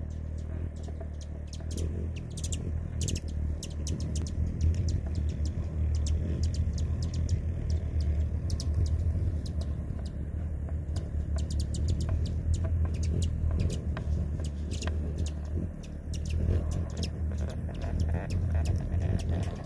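Hummingbird wings humming right at the microphone as the bird hovers at the feeder, a deep, steady buzz that dips briefly near the end. Frequent short, high chips and ticks sound over it.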